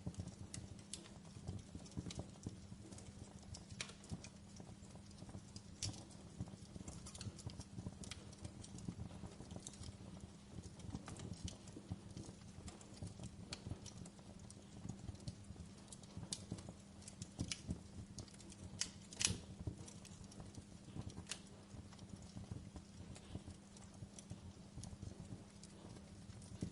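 Wood campfire crackling, with irregular sharp snaps and pops over a steady low rumble of the flames. One louder pop comes about two-thirds of the way through.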